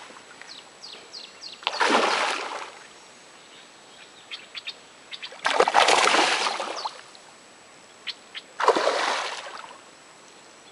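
Water splashing three times, each splash a noisy surge lasting about a second, with quieter gaps between them.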